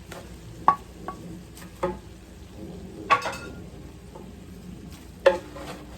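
Blue crab stir-frying in a pan: a spatula knocks and scrapes through the crab pieces about five times over a low, steady sizzle, the loudest knock about three seconds in.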